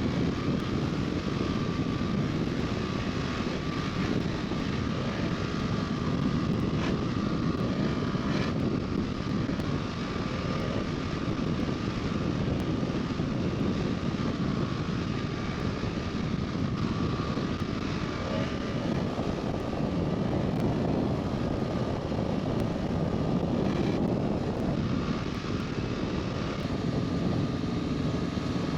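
Motorcycle engine running at a steady road speed, mixed with heavy wind rush over the microphone.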